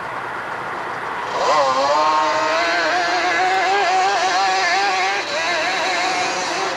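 500cc ATV engine revving hard as the quad launches up a dirt hillclimb. About a second in the engine note jumps sharply and rises, then holds at high revs with a slight warble in pitch.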